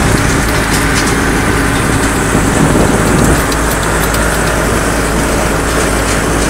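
Deutz tractor's diesel engine running steadily as the tractor drives along, heard from the driver's seat, with light rattling ticks over it.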